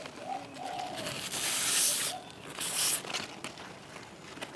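A knife blade scraping the spines off the skin of a crystal apple cucumber: two scraping strokes, a longer one starting about a second in and a shorter one near the three-second mark.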